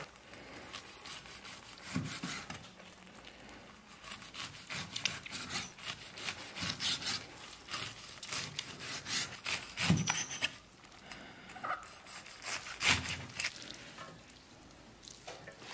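Cleaver slicing beef omasum tripe into shreds on a thick wooden chopping block: a fast run of knife strokes tapping the board, with a few heavier thuds of the blade on the wood.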